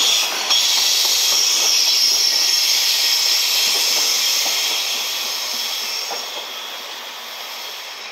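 Loaded container flatcars of a freight train rolling past on steel wheels: a steady high-pitched hiss of wheels on rail, with faint knocks of wheels over rail joints. It fades over the last few seconds as the end of the train passes.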